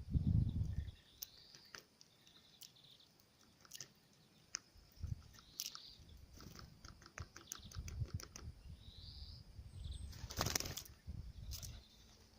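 Birds at a feeder: irregular sharp pecking taps, a few short high chirps, and a loud flurry of wingbeats about ten seconds in.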